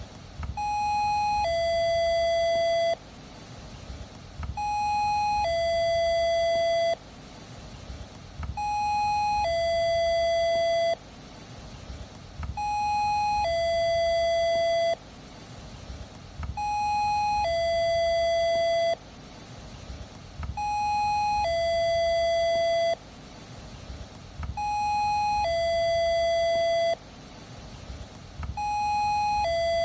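Electronic two-tone doorbell sounding "ding-dong" over and over, about every four seconds. Each ring is a higher note held about a second, then a lower note held a little longer, and both cut off sharply.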